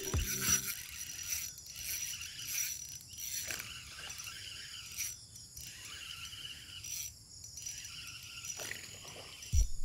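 Spinning reel being cranked during a popper retrieve: a faint whirring that runs in spurts and stops briefly a couple of times, over a steady high-pitched chirring.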